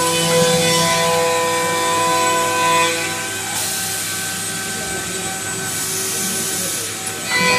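CNC wood router running, its motors giving off several steady whining tones that change pitch in steps as the moves change, over a hiss of cutting.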